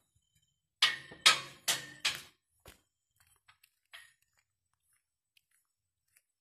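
Four sharp knocks about half a second apart, each ringing briefly, then two fainter knocks. The source is not identified: this is the unexplained knocking heard during night work.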